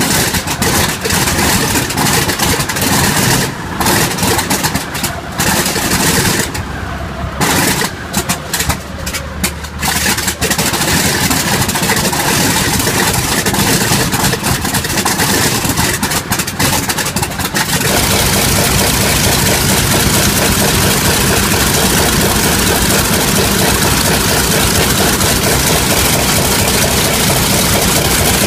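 Vought F4U Corsair's Pratt & Whitney R-2800 radial engine starting up. It runs unevenly at first, with brief gaps as it fires irregularly, then about two-thirds of the way through it settles into a loud, steady run.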